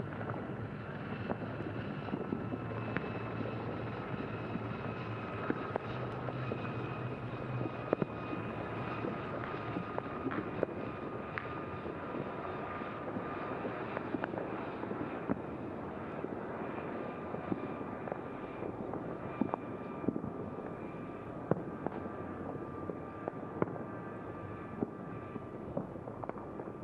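Distant fireworks and firecrackers: a steady noisy din, broken by many scattered sharp cracks and pops, with a few held whistling tones.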